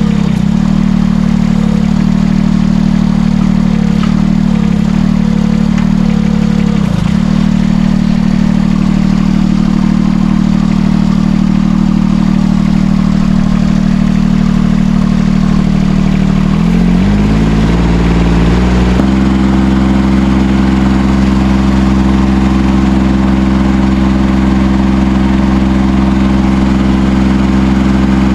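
Small diesel engine of a Chinese mini excavator running steadily, with a few brief dips in its note in the first seven seconds. About 17 s in its speed shifts over a couple of seconds and then holds steady at the new speed.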